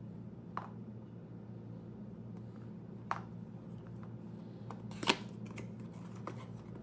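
Knife packaging being handled and opened by hand, giving a few scattered clicks and rustles. The loudest click comes about five seconds in, over a low steady hum.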